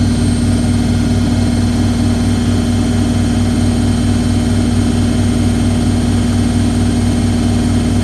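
Hoover A3190 Electron 1100 De Luxe washing machine spinning at high speed: a steady motor hum over a low rumble that pulses at an even rate as the drum turns.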